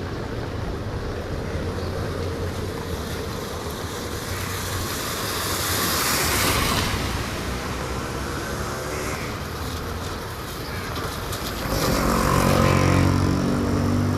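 Street traffic passing on a wet road: a vehicle hisses past about halfway through, and a motor vehicle's engine passes, louder, near the end.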